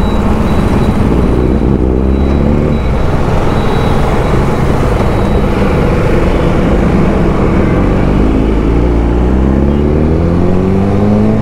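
Motorcycle engine accelerating, its pitch rising twice: once in the first few seconds and again near the end, over a steady rush of wind and road noise while riding.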